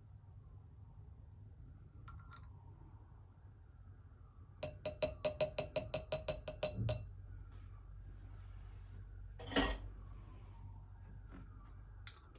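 A metal spoon clinking quickly against a glass as it stirs, about fifteen ringing strikes in just over two seconds. A few seconds later comes a single louder clink.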